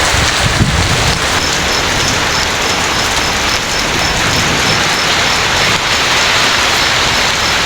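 Heavy rain pouring steadily in a windstorm, with a low wind rumble on the microphone in the first second.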